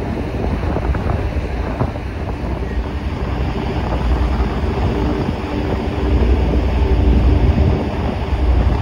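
Wind buffeting the microphone on the open deck of a moving car ferry, over a low rumble from the ship and the rush of its wake. A faint steady hum joins about four seconds in, and the wind and rumble grow louder about six seconds in.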